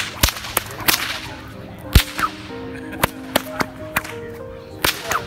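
Bullwhip cracking: a quick series of sharp cracks, several to a second at times, the loudest about two seconds in.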